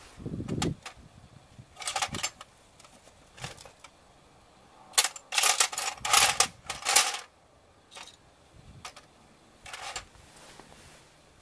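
Metal clinking and rattling from a drum-brake shoe and its parking-brake lever being handled: short clatters about two seconds in, a louder run of clinks from about five to seven seconds, and one more near ten seconds.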